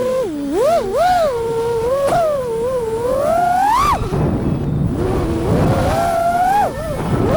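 FPV freestyle quadcopter's brushless motors (Xing 2 2207 1850kv) and propellers whining, the pitch rising and falling quickly with the throttle. About four seconds in the whine climbs sharply, then drops away into a rush of air before picking up again.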